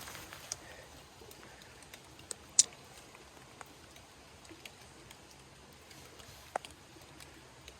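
Sparse water drops dripping and tapping in a rain-soaked forest: a few irregular sharp ticks, the loudest about two and a half seconds in.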